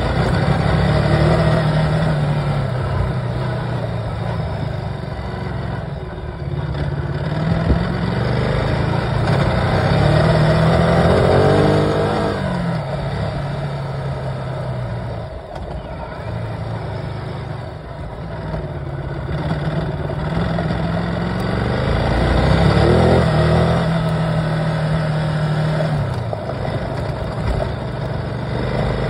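A vehicle's engine running as it drives over a dirt and gravel road, heard from inside the cab over tyre and road noise. The engine note climbs to a peak about twelve seconds in, falls away, and rises again a little past twenty seconds.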